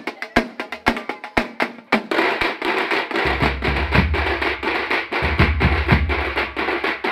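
A street drum band of large stick-beaten drums playing: sparse sharp strikes at first, then the full band joins about two seconds in, with a deep bass-drum boom coming in about a second later and carrying on.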